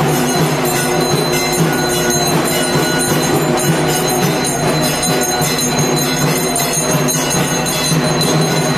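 Bells ringing quickly and continuously, mixed with music.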